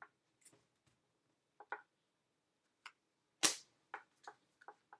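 Baseball trading cards clicking and snapping as a stack is thumbed through card by card: about ten short, sharp flicks at uneven spacing, the loudest a snap about three and a half seconds in.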